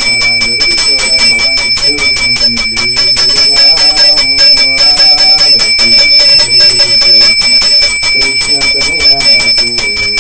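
Small brass hand bell rung rapidly and continuously in Hindu puja worship, a quick even ringing that does not stop, with a voice chanting in long, slowly gliding tones beneath it.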